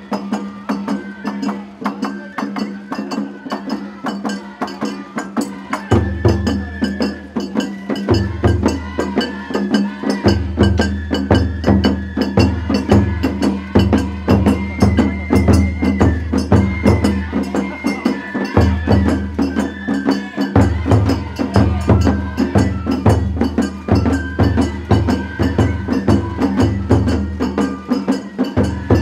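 Festival float ohayashi music: a fast, unbroken clacking percussion rhythm, with deep taiko drum strokes joining about six seconds in and beating in phrases, under a thin, high held melody.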